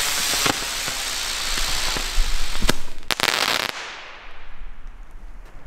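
A burning consumer firework effect with a loud, steady hiss of sparks, broken by a few sharp cracks. The hiss cuts off abruptly about three and a half seconds in, leaving only faint scattered pops.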